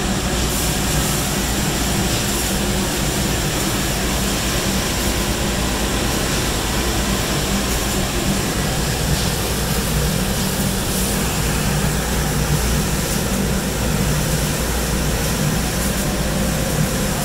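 Metal-finishing sanding machine running, with its abrasive belt and rotary brush heads spinning: a steady loud drone with a low hum and hiss.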